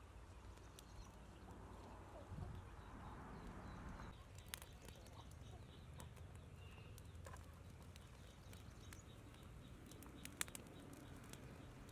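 Faint crackles and a few sharp pops from a small wood fire singeing a dried cowhide held over the flames, with faint bird calls behind.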